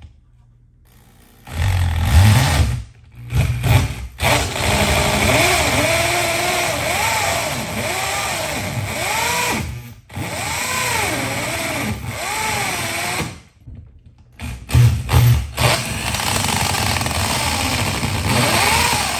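Corded Craftsman drill driving a hole saw through wooden wall sheathing, run in several stretches with brief stops. The motor's pitch rises and falls as the saw bites and loads it down.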